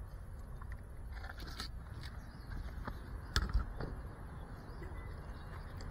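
Close handling noise of the FPV drone's onboard camera: rustling and scattered clicks as the drone is carried from a car boot, then a single sharp thud a little past halfway as it is set down on asphalt, followed by a few light footsteps. The motors are not running.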